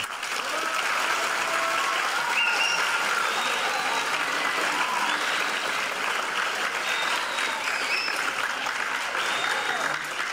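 A theatre audience of children applauding steadily, with scattered high voices calling out over the clapping.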